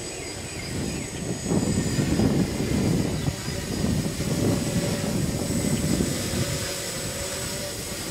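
Small quadcopter drone's electric motors and propellers whining steadily in flight. Gusts of wind rumble on the microphone, louder for several seconds in the middle.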